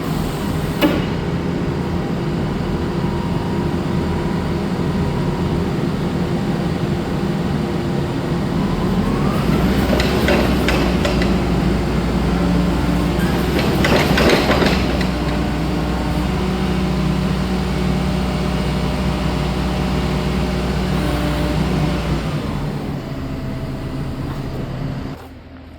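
Taylor X220S forklift's engine running steadily, swelling louder twice partway through before dropping away near the end.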